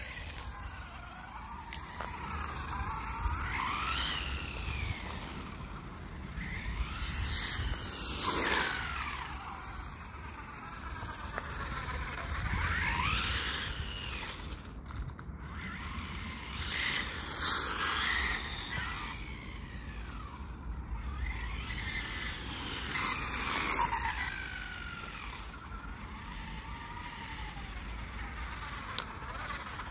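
Electric RC car (WLtoys A959B) being driven on a rough surface: its motor whine rises and falls with each burst of throttle, about every four to five seconds, over a steady rumble of tyres on the ground.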